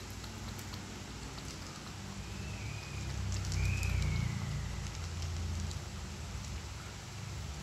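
Cats eating wet food from bowls: faint wet chewing, licking and crackling clicks over a low rumble that swells about halfway through, with two short faint high chirps near the middle.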